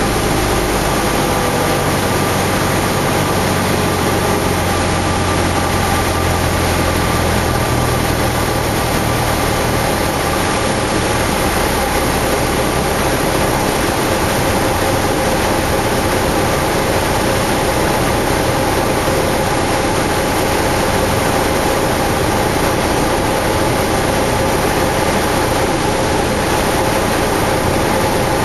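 Cessna 172's piston engine and propeller heard from inside the cockpit: a loud, steady drone with rushing air noise during the landing approach. Its low hum drops away about ten seconds in.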